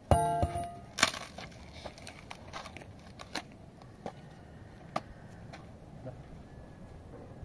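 A sledgehammer dropped onto hard ground lands with a ringing metallic clang, followed about a second later by a sharp knock. After that come scattered light knocks and scrapes as a split length of wood is handled.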